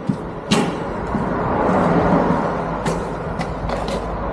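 Boot footsteps approaching on asphalt, then a few sharp knocks near the end as the camera is handled, over a steady vehicle rumble.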